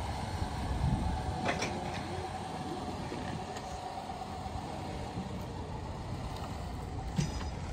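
Chevrolet Cobalt coupe driving slowly over a dirt lot: steady low engine hum and tyre noise, with a sharp click about a second and a half in and another near the end.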